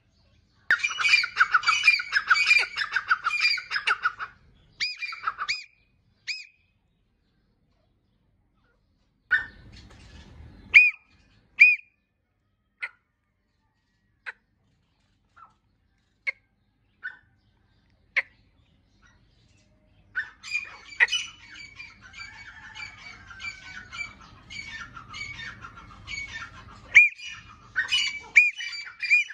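Grey francolin calling: runs of rapid, repeated high, shrill notes for the first four seconds and again over the last nine, with scattered single notes in between.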